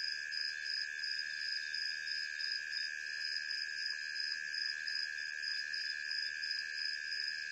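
Night chorus of crickets and other insects: several steady, shrill trills at different pitches, with a higher call pulsing a few times a second above them.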